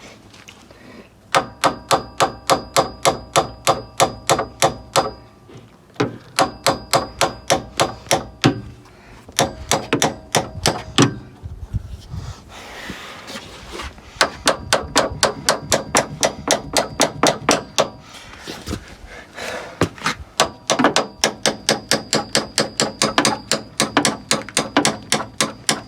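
Hammer striking a steel bushing removal tool in quick runs of blows, about three to four a second, each with a metallic ring, with short pauses between the runs. The tool is driving a seized, worn nylon door hinge bushing out of a Jeep Wrangler door hinge.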